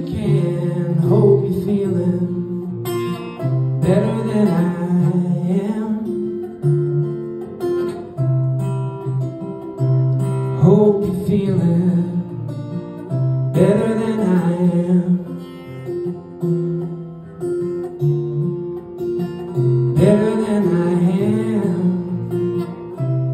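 Acoustic guitar strummed with a man singing over it, live; sung phrases come in several times between stretches of guitar alone.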